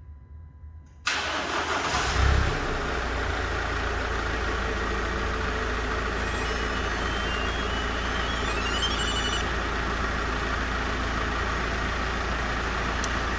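Ford Transit Custom engine starting on its aftermarket remote start about a second in: it catches with a brief rise in revs, then settles into a steady idle.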